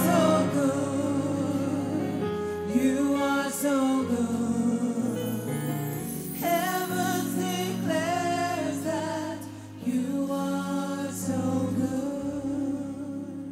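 Live gospel worship song: a slow, drawn-out sung melody in phrases over sustained instrumental chords, growing quieter near the end.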